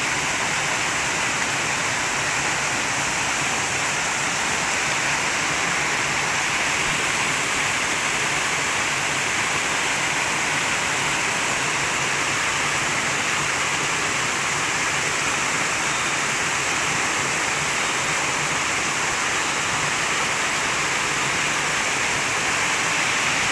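Small rocky cascade in a forest stream: a steady, even rush of falling water.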